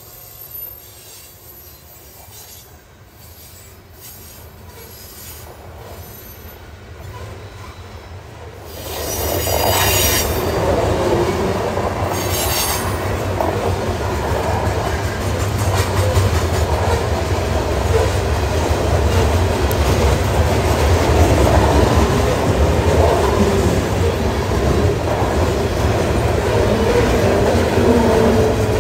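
Loaded covered hopper cars of a freight train rolling past: a steady rumble of steel wheels on rail that jumps louder about nine seconds in, with two short high-pitched screeches soon after.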